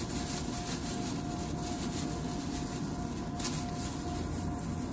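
Thin plastic disposable gloves crinkling as they are pulled onto the hands, with one sharper crackle about three and a half seconds in, over a steady low background hum.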